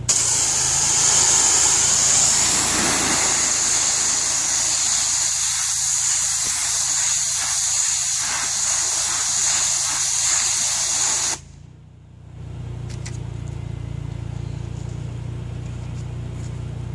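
High-pressure water jet from a pressure-washing rig spraying a piece of styrofoam: a loud, steady hiss that cuts off suddenly about eleven seconds in. The machine's motor hums steadily underneath and keeps running after the spray stops.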